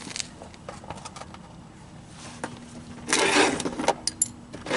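Metal hand tools and sockets clinking and rattling as they are handled, with scattered light clicks and a louder rattling rustle about three seconds in.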